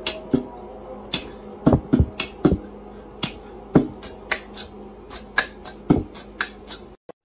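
A cat's claws clicking on a hard vinyl tile floor as it walks: sharp, irregular clicks, about two to three a second.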